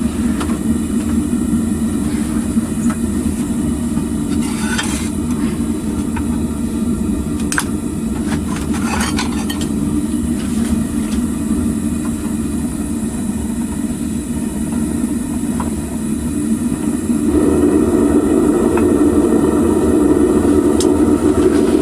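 Homemade propane furnace burner running with a steady, low rushing noise, the flame burning hot with the flue restricted; a few light metallic clinks sound around five to ten seconds in. The burner noise grows louder and brighter about seventeen seconds in.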